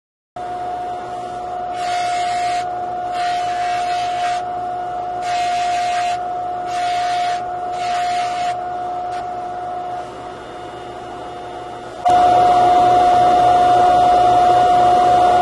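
Bench polishing motor running with a steady hum, while the workpiece is pressed against the spinning buffing wheel in about five short rasping bursts. About two-thirds of the way in, the sound gets suddenly louder and stays steady.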